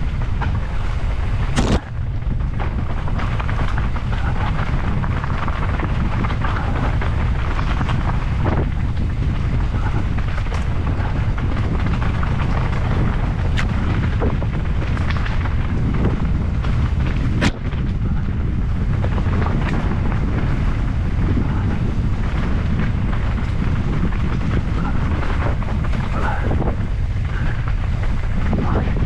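Steady loud rumble of wind buffeting and trail noise on a camera riding fast along a woodland dirt trail, with two sharp knocks, one about two seconds in and one about seventeen seconds in.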